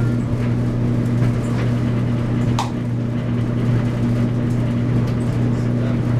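A steady low hum that holds one level throughout, with a faint tick about halfway through.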